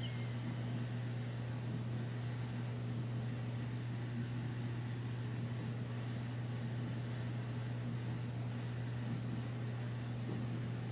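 A steady low hum over a faint hiss, unchanging throughout.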